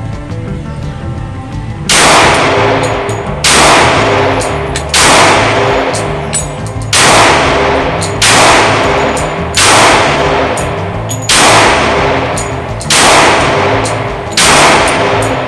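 Glock G30S .45 ACP pistol fired nine times at a slow, steady pace, about one shot every second and a half, each report ringing out with a long echo of an indoor range.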